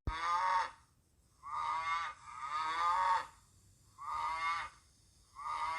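A farm animal calling over and over: about five short, wavering, bleat-like calls, each under a second to about a second long, with brief silences between.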